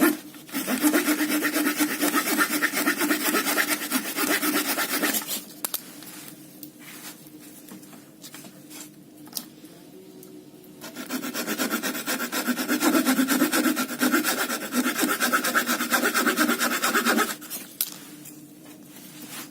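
Folding saw blade of a Victorinox German Army Knife sawing through wood with fast back-and-forth strokes. There are two spells of sawing, about five and six seconds long, with a pause between.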